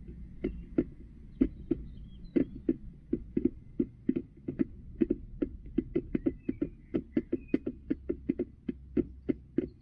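Hen pecking at feed in the red plastic tray of a poultry feeder: a run of sharp beak-on-plastic knocks, a few at first and then about three a second.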